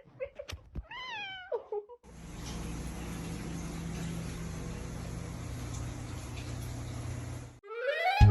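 A domestic cat meows about a second in, one call that rises and then falls in pitch. A steady rushing noise with a low hum follows for several seconds.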